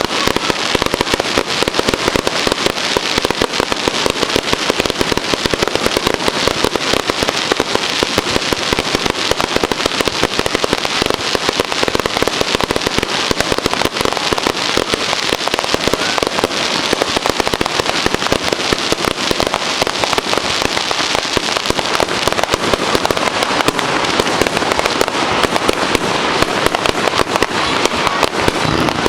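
Fireworks going off in a dense, continuous barrage of rapid bangs and crackles with no let-up.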